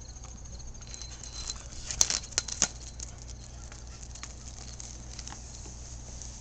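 Light scattered clicks and scrapes of a young dog's claws and a rubber garden hose dragging over concrete paving slabs, with a few sharper, louder clicks about two seconds in.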